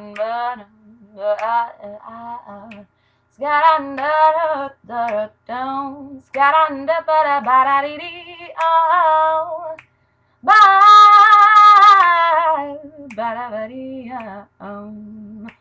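A woman singing solo with no accompaniment, in short phrases with a wavering vibrato. About two-thirds of the way through she holds one long, loud note.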